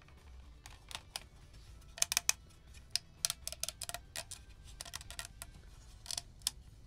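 Irregular light clicks and taps, some in quick clusters of two or three, over a steady low hum.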